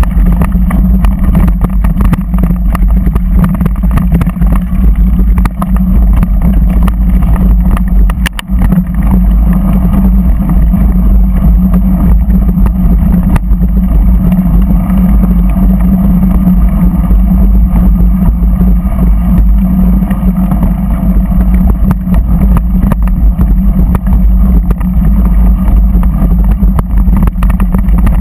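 A vehicle driving along a stony dirt track: a steady engine drone under heavy wind rumble on the microphone, with a scatter of small clicks from gravel under the tyres.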